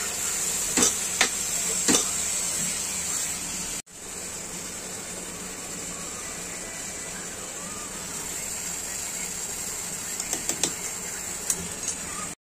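Meat frying in oil in a pot, a steady sizzle. A few sharp clicks come from a container knocked over the pot in the first two seconds, and light clicks of a steel spoon against a plastic turmeric jar near the end. The sound drops out for a moment about four seconds in.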